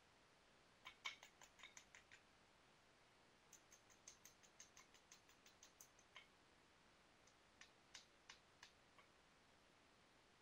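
Faint knapping clicks as a piece of Rainy Buttes stone is worked by hand: three runs of quick, sharp ticks, the longest in the middle.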